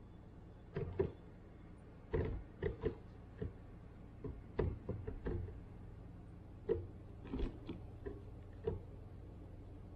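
Irregular sharp taps and knocks, about fifteen, unevenly spaced and some in quick pairs, from a bird's feet and bill on a plastic-pipe feeder stand as it shifts about on the perch.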